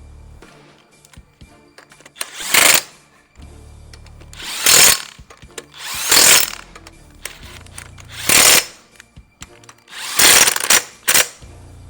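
Impact wrench running the wheel bolts in to refit a van's rear wheel, in short bursts, six in all, with gaps between them.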